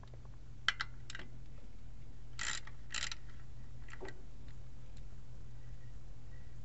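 A 3/8-inch socket ratchet worked on the rear differential's fill plug: a few metal clicks, then two short ratcheting bursts half a second apart, then a couple more clicks.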